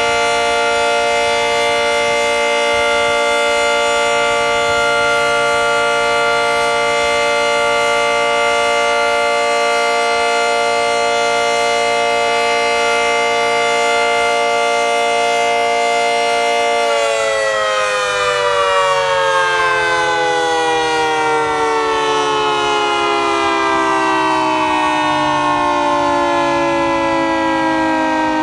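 Federal Signal 2T22 dual-tone electromechanical outdoor warning siren sounding its two-tone chord at steady full pitch, then winding down with the pitch falling steadily from about two-thirds of the way in. This is a scheduled siren test.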